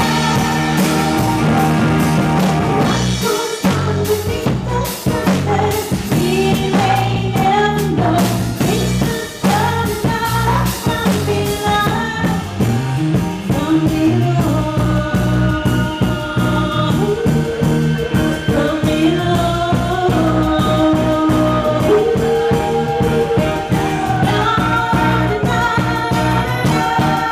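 Live rock band playing: singing over electric bass, guitar and keyboards/synthesizer, loud and continuous.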